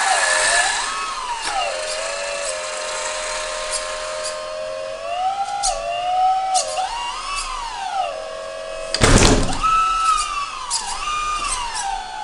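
Electric hydraulic pump of a 1/14-scale RC Volvo L250G wheel loader whining as it works the loader arms, its pitch rising and falling with the load and the valve movements, with small ticks. There is a loud sharp knock about 9 seconds in.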